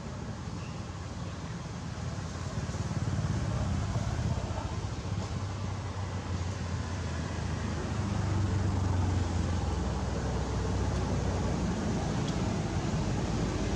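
Low, steady hum of distant motor vehicle engines, growing a little louder about eight seconds in.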